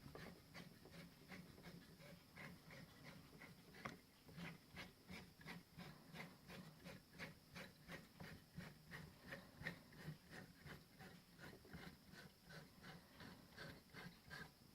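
Stepper motor on a home-built CNC machine's Z axis, stepping slowly in a faint, even run of about three ticks a second that stops near the end.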